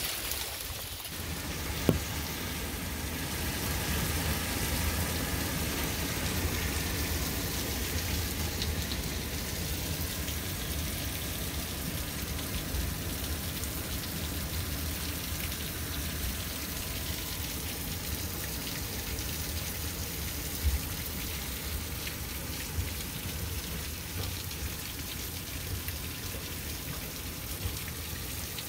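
Hail mixed with rain pelting a concrete walk and lawn: a steady, even hiss of falling pellets, with a few louder sharp ticks about two seconds in and again past the middle.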